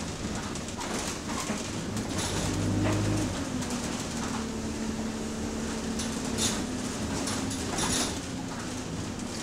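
Interior of a moving bus: the diesel engine drones on the move, with a steady whine in the middle of the stretch and a heavy low rumble about two to three seconds in. The body and fittings rattle and knock, sharpest around six and eight seconds in.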